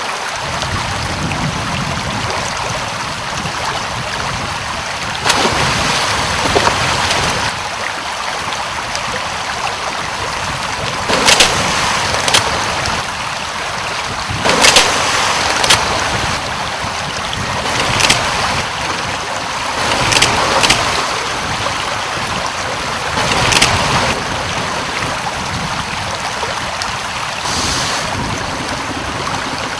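Crocodile crushing a tortoise's shell in its jaws: about a dozen sharp cracks, irregularly spaced and often in pairs, over a steady rush of water.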